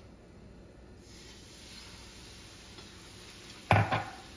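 Water and taco seasoning sizzling in a hot nonstick skillet of browned ground beef, with a steady hiss that sets in about a second in as the water hits the pan, and a spatula stirring. One sharp, loud knock near the end.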